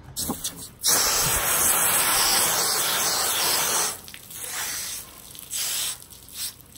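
Water spraying from a garden hose nozzle to rinse off hands after filleting. It starts with one steady spray about a second in that lasts about three seconds, then comes in a few shorter, weaker spurts.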